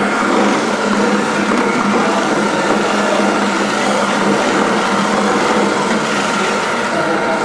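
A machine running steadily, a constant whirring hum with no breaks.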